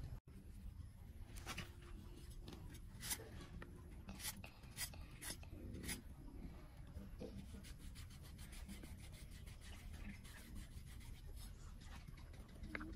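Large knife cutting and shaving the stalk end of a green banana hand: a run of short, sharp scraping cuts, thickest in the first half and fainter afterwards.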